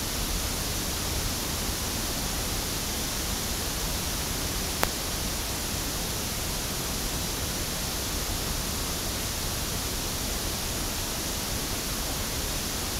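Steady pink-noise test signal hissing from a loudspeaker, used for a frequency-response measurement through a microphone. One sharp click sounds about five seconds in.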